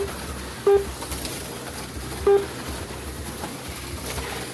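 HO-scale slot cars running on the track, a steady whir and hum, with three short electronic beeps from the lap-timing system as cars cross the line: one right at the start, one under a second later, one about two seconds in.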